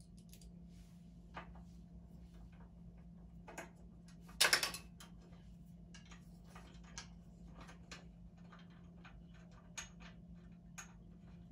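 Small metal clicks and taps of screws being fitted and turned by hand into the steel side bracket of a standing-desk leg, with one louder, brief clatter about four and a half seconds in.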